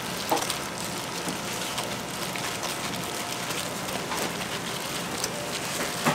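Hot oil crackling steadily in a deep fryer, with a couple of sharp knocks, one just after the start and one at the end.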